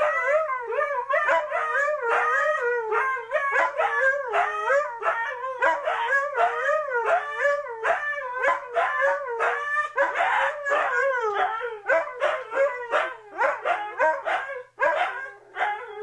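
Two Siberian huskies howling back and forth, egging each other on in short, wavering calls that rise and fall in pitch, about two or three a second.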